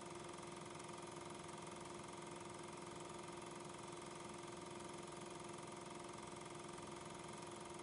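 Steady, unchanging machine hum with hiss, the same throughout: background noise of the film transfer rather than any sound of the railway scene, since regular 8mm film carries no soundtrack.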